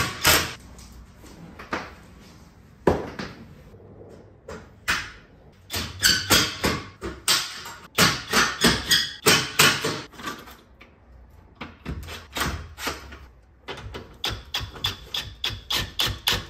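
Flex 24V cordless impact driver run in short bursts, tightening bolts on solar racking hardware into a mounting rail, with sharp clicks and knocks of the metal parts between bursts.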